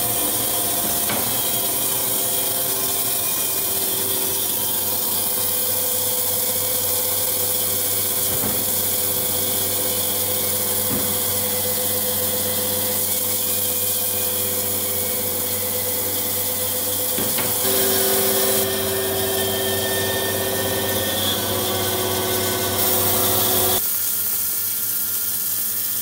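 Electric horizontal band sawmill running and sawing an olive ash log: a steady hiss from the band blade over motor hum and a constant whine. A higher tone joins past the middle, and the low hum drops off near the end.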